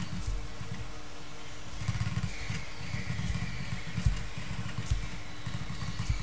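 A low, uneven rumble in the background, like a motor running, with faint scratches and ticks of a ballpoint pen writing on paper.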